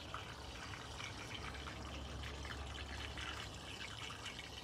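Liquid all-purpose cleaner pouring from a jug through a plastic funnel into a plastic spray bottle, a continuous trickling pour.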